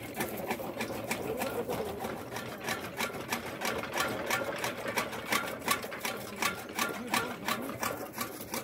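Donkey-powered gear toka (chaff cutter) running: its gear drive and cutter make fast, even clattering clicks, about four or five a second.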